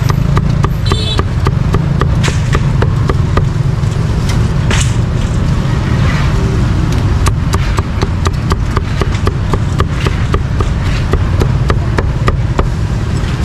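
Cleaver chopping roast meat on a chopping block in quick, steady strokes, about three or four a second, over a steady rumble of street traffic.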